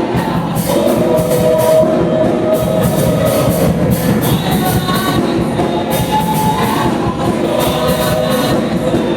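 Live church praise music: a band with singing over a steady drum and cymbal beat.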